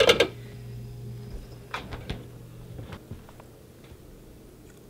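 A clatter of bottles as a ketchup bottle is pulled from a refrigerator door shelf, followed by a few light clicks and knocks.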